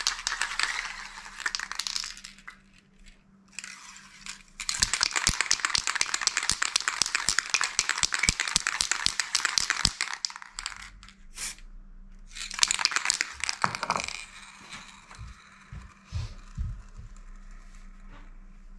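Aerosol can of chrome-effect spray paint being shaken, its mixing ball rattling rapidly inside the metal can. The rattling comes in three spells with short pauses between them.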